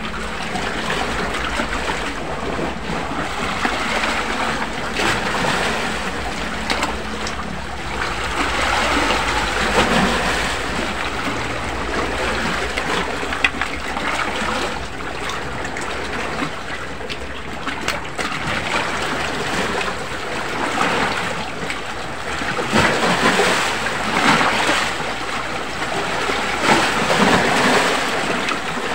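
Sea water washing and lapping against a rocky shore: a continuous surf wash that swells and ebbs, with a few short sharp clicks, one most noticeable about halfway through.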